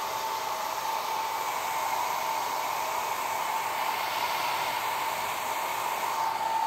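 Philips 1200-watt hair dryer running steadily on its first, lowest-speed setting: an even rush of air with a steady whine.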